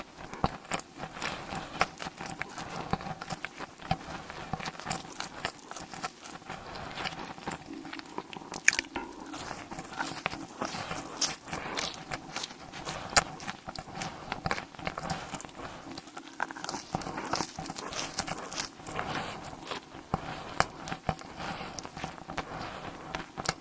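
Close-miked eating: steady biting and chewing, with many small crunches and wet clicks.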